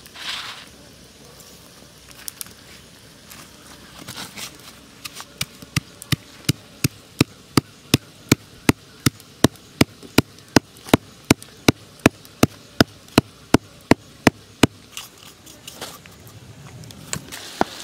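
Stone pestle pounding whole peppercorns and seeds in a stone mortar: a few loose taps, then a steady run of sharp strikes about three a second for roughly ten seconds, stopping a few seconds before the end.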